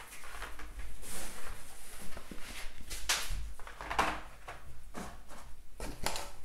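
Cards and pieces being packed back into a cardboard board-game box: rustling with a few soft knocks of cardboard, about one a second in the second half.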